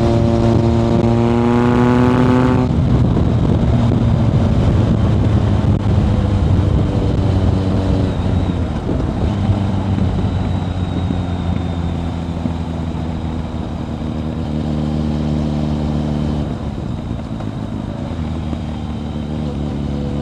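Kawasaki ZRX1100 inline-four with a Yoshimura exhaust, ridden: the revs climb steadily under acceleration for about two and a half seconds, then the throttle shuts off. The engine then runs on at lower, uneven revs, with its pitch easing down near the end.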